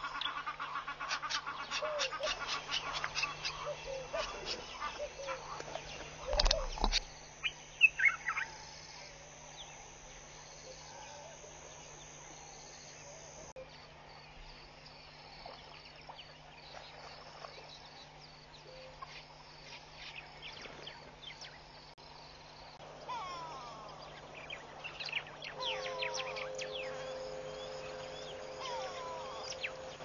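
Wild birds calling: a busy run of rapid chirps for the first few seconds and a couple of loud sharp knocks about six to eight seconds in. After a quieter stretch come more chirps and short gliding calls near the end, over a steady low hum.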